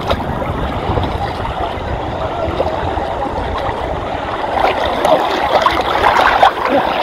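Seawater sloshing and splashing close to the microphone as people wade waist-deep through it, busier in the last two seconds as someone pushes through the water right beside it.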